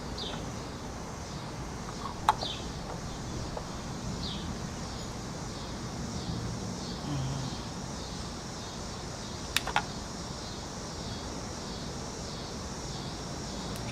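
Cicadas droning steadily in a pulsing high buzz, with a bird chirping a few times near the start. Sharp clicks come about two seconds in and twice near ten seconds.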